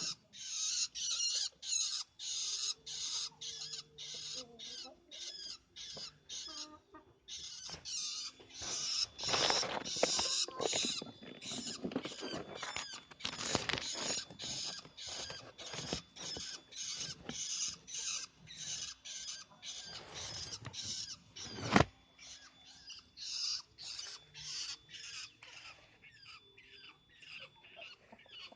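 Long-tailed shrike (pentet) calling with a steady train of short, harsh, high-pitched notes, about two to three a second. A single sharp click about twenty-two seconds in.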